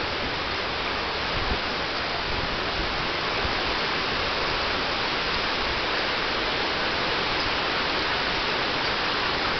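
Steady rush of running water, an even hiss without a break.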